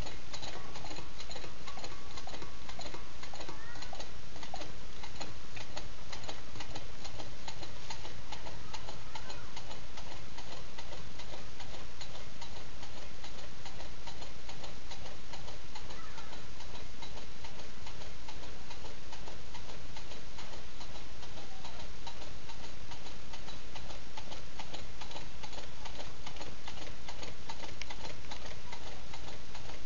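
Homemade beer-can low-temperature-differential (LTD) Stirling engine running, its mechanism making a rapid, steady ticking.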